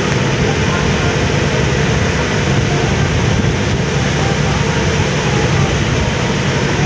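Steady noise of wind buffeting the microphone on a moving ferry's open deck, over the low drone of the ship's engine.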